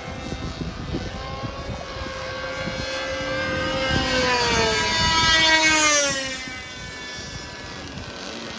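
Radio-controlled racing plane's small two-stroke glow engine screaming at full throttle in flight. It grows louder, then its pitch drops and it fades as the plane passes, about five to six seconds in.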